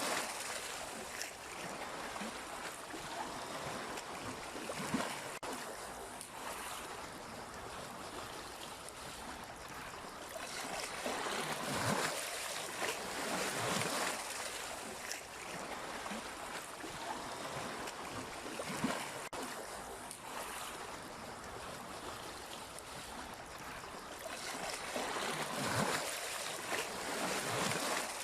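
Sea waves washing and splashing against the shore in a steady wash, swelling and falling back every few seconds.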